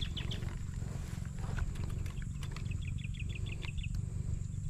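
Steady low rumble of wind on the microphone, with a bird calling a quick series of short high chirps about two seconds in.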